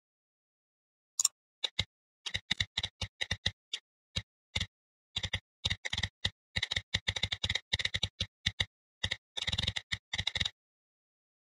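Typing on a computer keyboard: quick irregular key clicks in bunches with short pauses, stopping about a second before the end.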